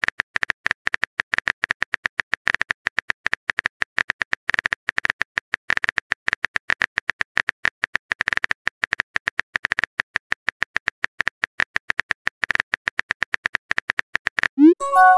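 Simulated phone-keyboard typing sound from a texting-story app: rapid, irregular clicks. Near the end they stop and a short rising message tone plays.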